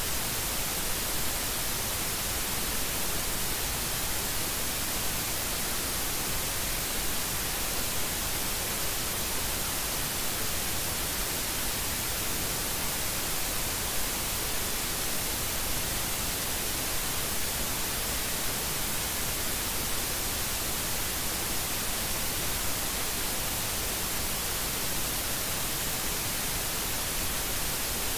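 Steady, even hiss of static with no other sound, strongest in the upper frequencies.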